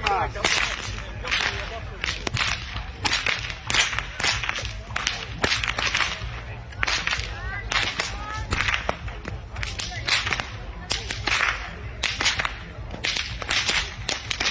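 Whips being cracked by several men in turn: a rapid, irregular series of sharp cracks, about two to three a second, overlapping at times.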